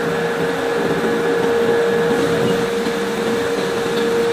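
Ring rolling mill running as it rolls a red-hot forged steel ring: a steady mechanical drone with a constant humming tone.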